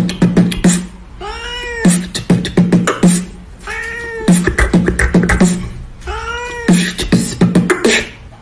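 A cat meowing repeatedly, short meows that rise and fall in pitch, over a person beatboxing a quick rhythm of clicks and low thumps.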